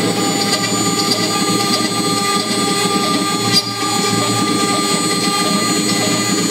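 CNC router spindle running at high speed with a thin end mill cutting into wood: a steady high whine over a constant grinding rush, with one brief click about three and a half seconds in.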